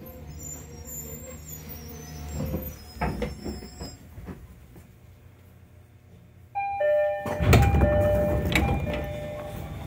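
A 205 series electric train comes to rest with a low hum and a few clunks. About six and a half seconds in, a chime of steady tones sounds. A second later the pneumatic sliding doors open with a loud rush of air that fades over a couple of seconds.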